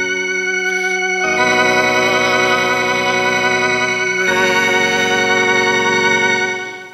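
Organ playing slow, sustained chords, changing chord about a second in and again past the four-second mark, then fading out near the end.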